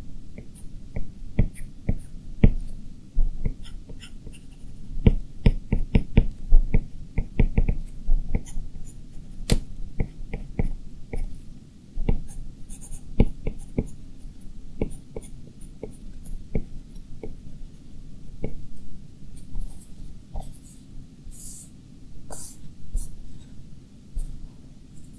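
A stylus tip tapping and stroking on an iPad Pro's glass screen while drawing: quick, irregular clicks, several a second.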